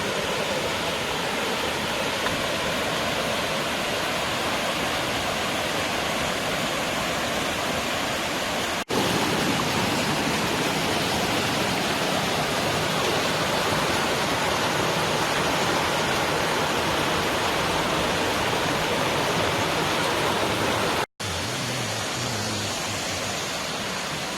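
Mountain valley stream running high after rain, water rushing steadily over rocks. The sound breaks off for an instant twice, at cuts between clips.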